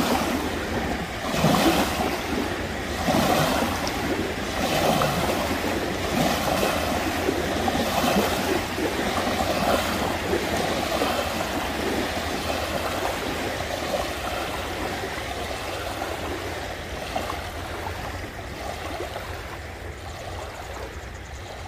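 Small boat-wake waves lapping and breaking one after another on a sandy river shore, a swell of splashing about every second and a half that slowly dies down toward the end.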